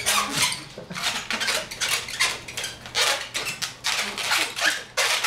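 Long latex twisting balloon squeaking and rubbing as it is twisted into a poodle, in quick, irregular squeaks.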